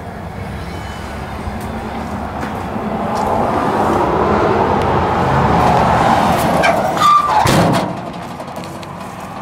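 A motor vehicle passing by: tyre and engine noise swells over several seconds and peaks about seven seconds in, where its pitch falls quickly, then it fades.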